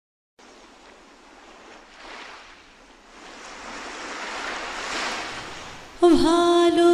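Ocean waves washing in, the surge swelling and easing twice. About six seconds in, background music starts with a loud held note.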